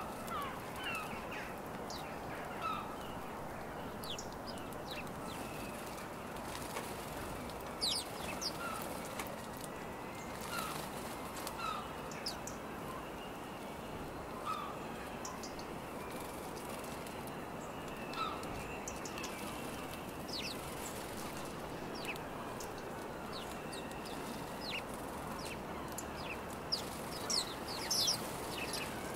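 A flock of house sparrows at a seed feeder giving scattered short chirps and sharp calls over a steady background noise. Near the end comes a cluster of louder chirps with a flutter of wings as a sparrow takes off.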